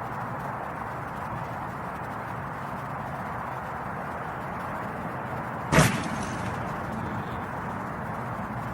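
A steady rushing noise, with one sharp, loud knock a little before six seconds in.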